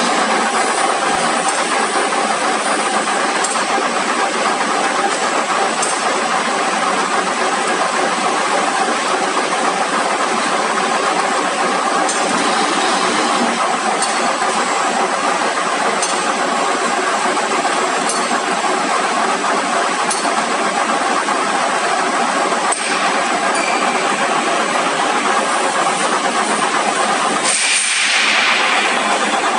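Jute and sisal rope ball winder machine running at a constant speed, its rotating winding arms and drive making a steady mechanical hum with a hiss as twisted rope is wound into a ball.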